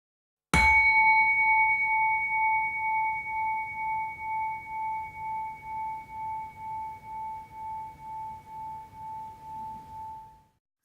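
A single struck bell-like note, about half a second in, ringing on with a gentle pulsing wobble about twice a second as it slowly fades away over some ten seconds.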